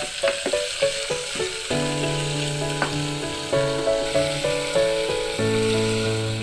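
Food frying in hot oil in a pan, sizzling steadily, with a few sharp clicks of a spoon against the pan. Background music with held notes plays under it.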